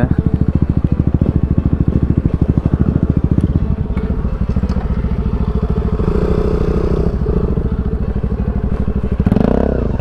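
Motorcycle engine idling with a fast, even pulse, louder for the first few seconds and then softer.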